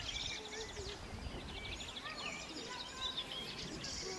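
Several songbirds singing at once, with short chirps, slurred whistles and fast trills of rapidly repeated notes, over a low, steady rumble of outdoor background noise.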